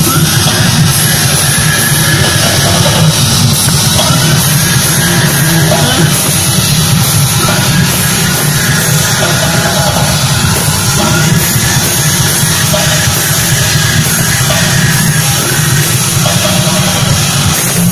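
A live heavy rock band playing loud through a PA: distorted electric guitar over a driving drum kit, dense and steady throughout.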